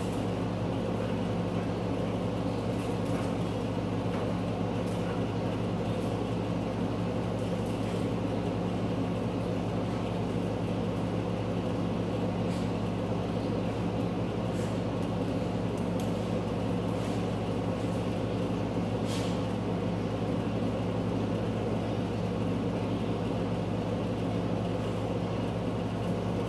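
Steady machine hum, like a ventilation fan or air-handling unit running, unchanging throughout, with a few faint ticks here and there.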